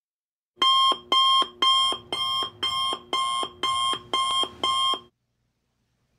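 Electronic alarm-clock-style beeping: nine loud pitched beeps at about two a second, which stop about five seconds in.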